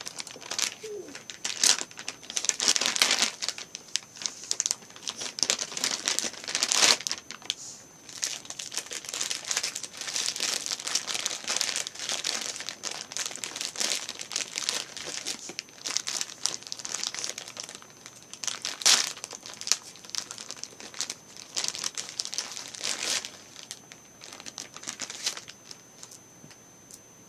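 Plastic packaging crinkling and crackling in the hands in irregular handfuls as a pack of green kinetic sand is unwrapped, dying down near the end.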